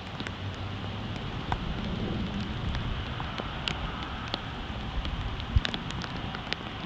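Heavy rain falling, with single drops tapping close by in a scatter of sharp ticks, one louder tap about five and a half seconds in. Under it runs the low rumble of an Airbus A330 taxiing slowly at idle.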